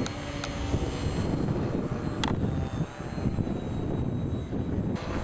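Electric brushless motor and propeller of a Firehawk RC model plane running with a thin steady whine, under heavy wind buffeting on the microphone. A few sharp clicks, two near the start and one about two seconds in.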